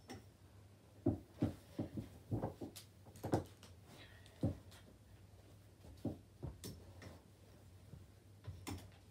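Scattered soft knocks, clicks and rustles of clothes being handled and clamped, busiest in the first few seconds and then sparser.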